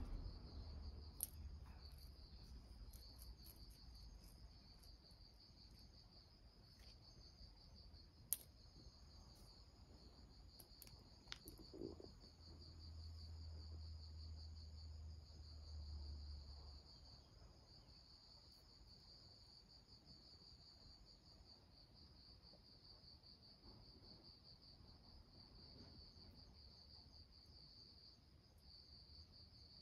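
Faint, steady high-pitched trilling of insects, with a few sharp clicks in the first half and a low muffled rumble for a few seconds near the middle.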